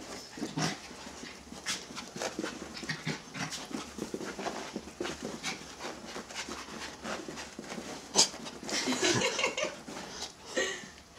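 Two small Havanese dogs play-fighting: irregular scuffling and dog noises with some panting, and a sharp louder sound about eight seconds in, followed by a busier burst of activity.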